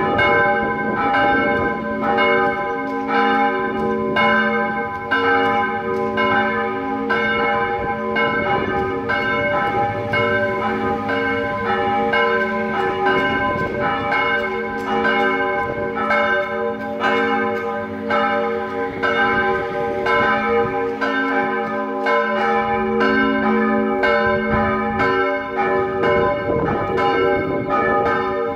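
Church bells swinging and ringing together in a full peal. Strokes fall about every half-second over a steady, overlapping hum.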